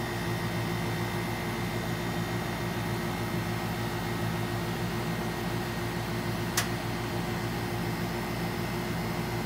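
Steady mechanical hum holding a few fixed tones, like a running fan or air-conditioning unit, with one sharp click about two-thirds of the way through.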